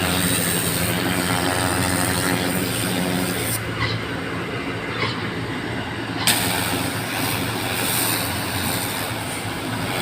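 Water hose jetting onto pavement with a steady hiss over the hum of a running engine driving the pump. The hiss thins out for a couple of seconds about four seconds in, then comes back strongly.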